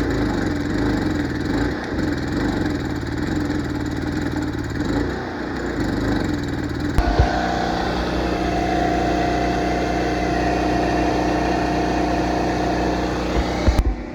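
Stick (arc) welding: the arc crackling and sizzling steadily as a wide bead is run into a crack in a cast brake piece. It strikes up abruptly and cuts off just before the end, and a steady hum joins it about halfway through.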